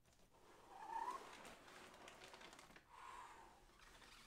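Cardboard and plastic wrap rubbing and crinkling as a wrapped RC truck is slid out of its box, with two short squeaks: a rising one about a second in and another around three seconds.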